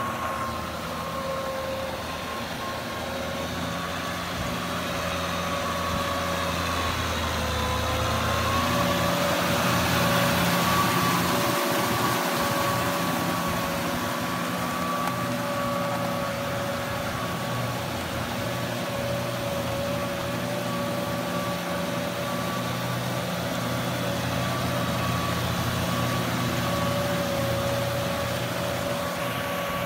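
Kubota M6040SU tractor's four-cylinder diesel engine running under load as the tractor drives a rear rotary tiller through a flooded rice paddy on steel cage wheels. A steady high whine rides over the engine throughout, and the sound grows louder toward the middle as the tractor comes close.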